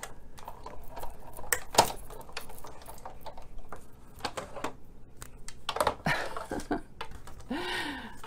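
Sizzix Big Shot die-cutting machine being hand-cranked, the clear plastic cutting plates and magnetic platform passing through the rollers with irregular clicks and knocks, the sharpest about two seconds in; then the plates are handled and shifted on the machine's platform.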